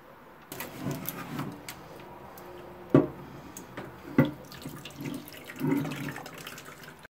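Meat drippings poured from a foil-lined glass baking dish into a small bowl: liquid trickling with foil crinkling and small crackles as the dish is tipped. Two sharp knocks, about three and about four seconds in, are the loudest sounds.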